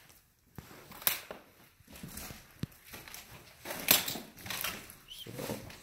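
Footsteps crunching through loose paper, cardboard and debris on a littered floor: irregular crunches and crackles, the loudest about a second in and again about four seconds in.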